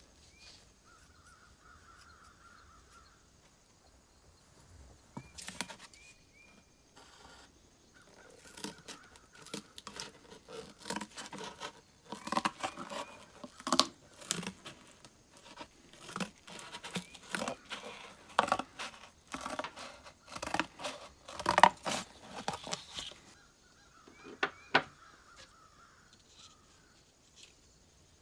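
Restored antique scissors cutting through corrugated cardboard: a long run of snips and cardboard crunching that stops a few seconds before the end.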